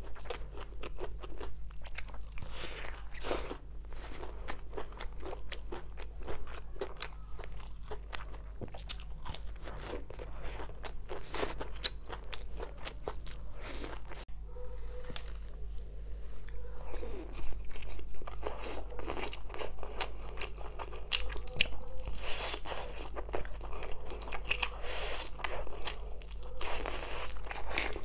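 Close-up eating sounds: biting and chewing spice-coated grilled meat pulled off skewers, a dense run of small crunches and wet clicks over a low steady hum.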